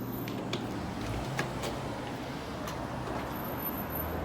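A vehicle's engine running with a steady low hum, with a few faint clicks.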